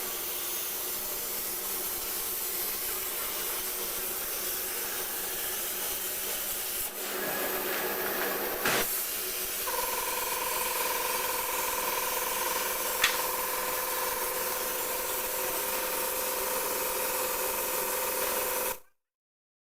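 CNC plasma cutter cutting stainless steel sheet: a steady hiss of the plasma arc and its air, changing about seven seconds in. A steady whine joins at about ten seconds, with a single click near thirteen, and the sound cuts off suddenly about a second before the end.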